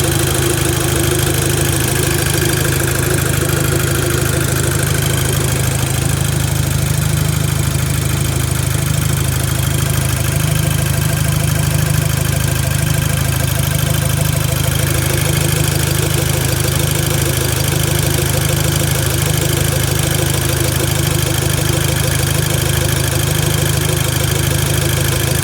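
VW Golf Mk5 GTI's 2.0-litre turbocharged four-cylinder engine idling steadily, making a sound the owner calls weird and cannot tell is normal.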